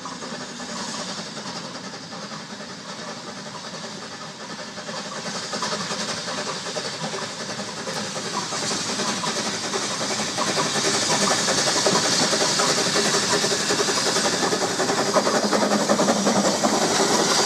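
Peckett saddle-tank steam locomotive working a train of coaches, growing louder as it draws close and runs past, with a strong hiss of steam in the second half.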